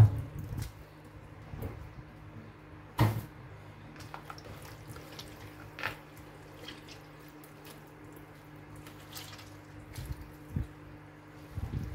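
Chopped, peeled tomatoes squelching and dripping as they are squeezed by hand in a plastic bowl, their juice running out. There is a sharp knock about three seconds in, over a steady low hum.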